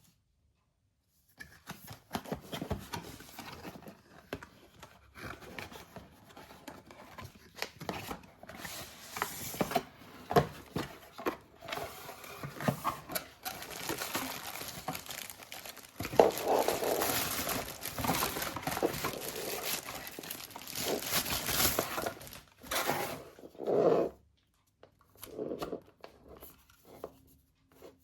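Packaging being handled and opened: plastic and paper crinkling and tearing in irregular bursts, with knocks and scrapes, loudest and densest in the second half.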